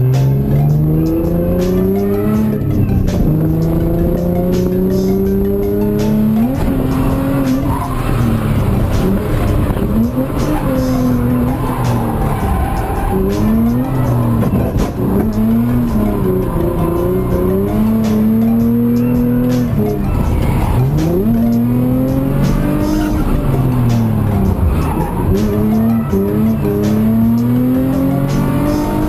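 A car being driven hard in a drift: the engine revs rise and fall again and again, with tyres squealing and skidding.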